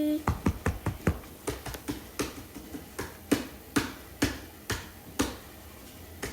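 A quick run of about fifteen sharp taps or clicks at an uneven pace, close together at first, then spacing out and stopping about five seconds in.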